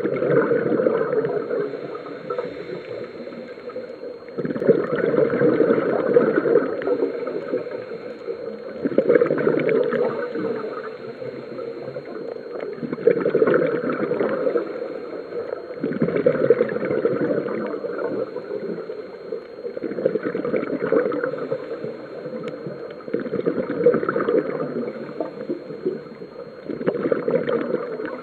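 Scuba diver's regulator breathing underwater: a gurgling rush of exhaled bubbles that swells and fades about every four seconds.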